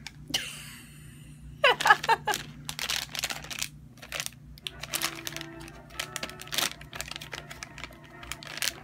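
Soft plastic pack of makeup remover wipes crinkling and rustling as it is handled and opened, a run of quick crackles.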